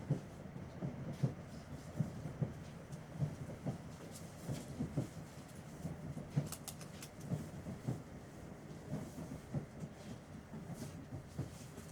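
Inside a British Rail Class 317 electric multiple unit on the move: a steady low rumble with irregular knocks and clatter from the wheels on the track, and a few sharp rattles.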